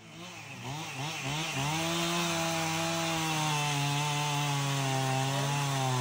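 Two-stroke gas chainsaw revving up and down a few times, then running steadily at high speed as it bites into a tree trunk. Its pitch dips briefly and picks up again near the end.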